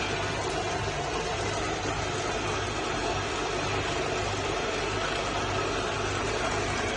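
Continuous carbonization furnace plant running: a steady machine hum with an even rushing noise over it.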